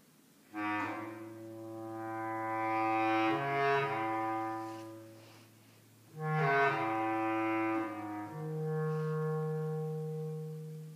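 Bass clarinet playing two long, low held phrases, each swelling and then fading away, with a short break between them.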